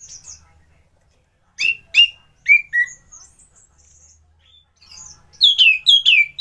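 Orange-headed thrush (anis merah) singing: loud, clear whistled notes that each slide downward, first four spaced notes, then softer high twitters, then a quick run of about five falling notes a second near the end.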